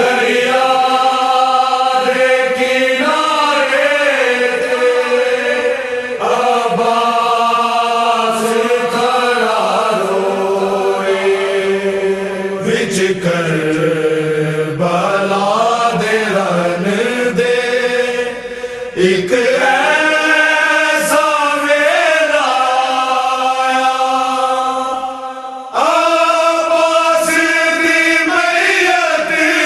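Slow chanted vocal recitation in the style of a Muharram noha (lament), with long held notes that waver and bend, sung in long phrases with short breaks between them.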